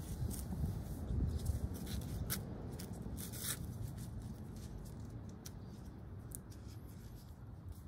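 Sandal lace strap rasping and clicking as it is pulled through and adjusted by hand, in short scrapes that are thickest in the first few seconds and sparser after. A steady low rumble runs underneath.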